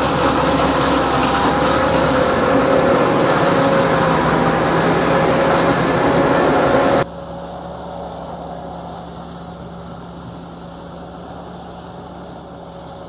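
Heavy harvesting machinery running steadily under load, with a constant high whine over a broad rumble. About seven seconds in, the sound cuts suddenly to a quieter, more distant machine sound.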